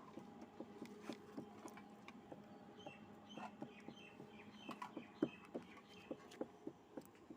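Faint irregular clicks and, around the middle, a run of short high chirps, over a low steady hum.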